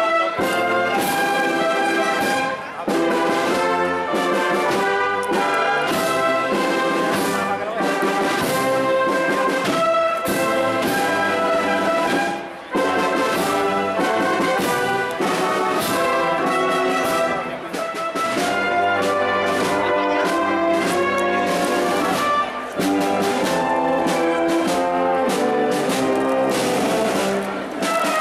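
Wind band led by trumpets and trombones, with drums, playing a Spanish Holy Week processional march, with short breaks between phrases.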